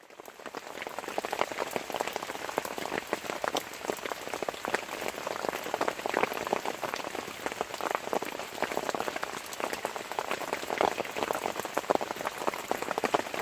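Heavy rain falling, a dense steady crackle of drops, fading in over the first second.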